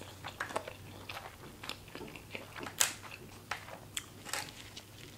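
Close-miked chewing of fried rice: irregular wet mouth clicks and smacks, the loudest about three seconds in.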